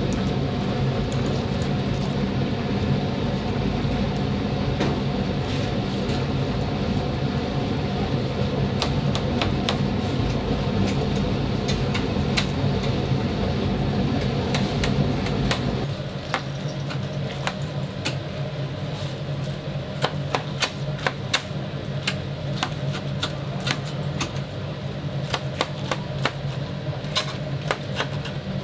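Metal tongs and a knife clicking and scraping against a steel wire rack as whole fried chickens are handled and cut, in quick irregular clicks over a steady low machine hum. The hum drops off suddenly about halfway through, leaving the clicks more prominent.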